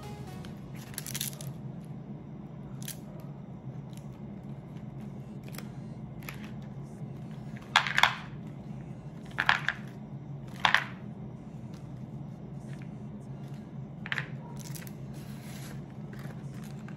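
Packaging of a box of almond chocolates rustling and clicking as pieces are pulled out and set on a board of chocolates, with three louder crinkles between about eight and eleven seconds in, over a steady low hum.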